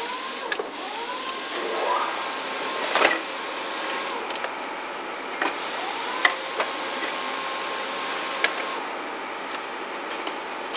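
A small electric motor spins up and runs at a steady whine twice, over a hiss. A few sharp clicks and knocks, the loudest about three seconds in, come from plastic dash trim being worked loose.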